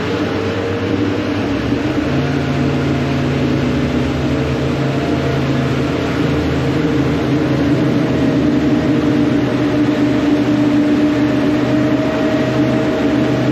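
Suzuki outboard motor running steadily at speed as the center-console boat cruises across the water, its steady engine note over the rush of wind and water.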